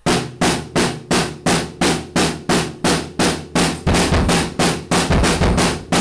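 Acoustic drum kit played in a small bedroom, a steady even beat of about three hits a second. It is an ordinary home recording of drums, not a polished studio drum sound.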